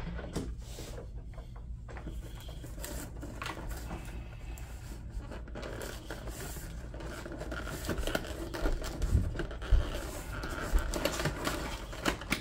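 Clear plastic blister packaging rubbing, crinkling and scraping against the cardboard box as it is worked loose by hand and lifted out, with a few soft knocks in the second half.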